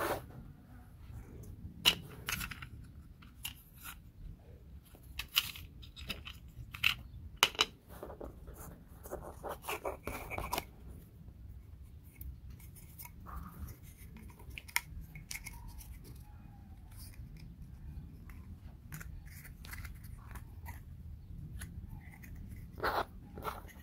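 Thin laser-cut wooden puzzle pieces being handled and fitted together: scattered sharp clicks and taps with rustling between them, the loudest clicks in the first eight seconds.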